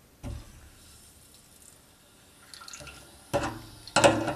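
Water hissing and trickling through a radiator valve as it is opened, letting heating-system pressure back into the drained radiator. A couple of sharp clicks near the end.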